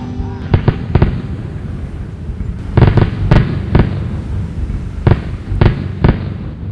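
Fireworks going off: about ten sharp bangs at irregular intervals, several close together around three seconds in, over a low rumble.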